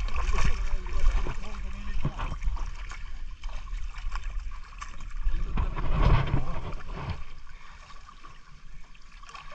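Water sloshing and splashing in a shallow canal, rising in two surges, near the start and about six seconds in, with a little distant talk.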